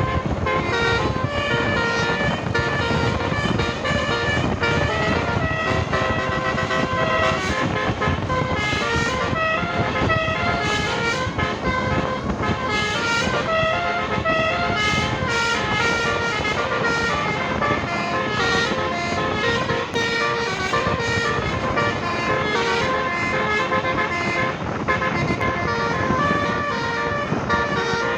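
Basuri telolet multi-tone bus horn playing a fast tune of short stepped notes without a break.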